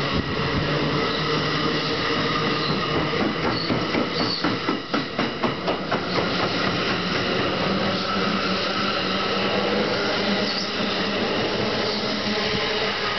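NJ Transit Multilevel bi-level coaches rolling past close by as the train pulls out, a steady rumble and rush of wheels on rail. About four to six seconds in comes a quick run of wheel clicks and clacks.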